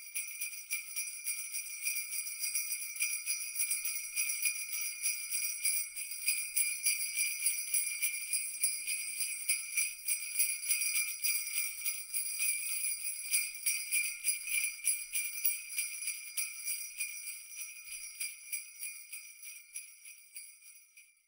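Jingle bells shaken in a steady, continuous jingle, fading out over the last few seconds.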